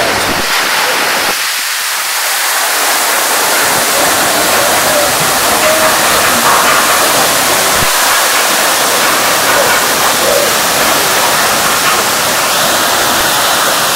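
Fung Fung waterfall's water falling down the rock face into its pool: a loud, steady rushing hiss.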